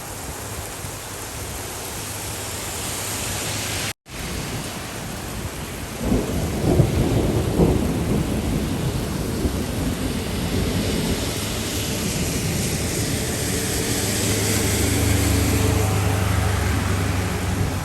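Steady rain hiss; about six seconds in a rolling rumble of thunder comes in, loudest over the next couple of seconds and then grumbling on.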